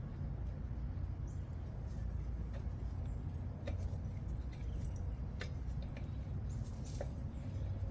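A few light, sharp metallic clicks from sockets and hand tools being handled, spaced a second or two apart, over a steady low rumble.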